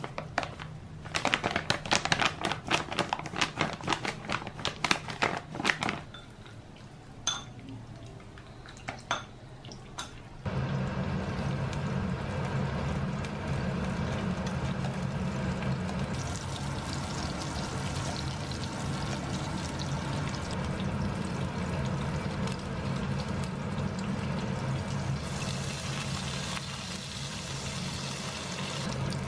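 Dishes and utensils clattering in quick succession, then a few lighter clinks; about ten seconds in, a steady rush of running water starts and continues.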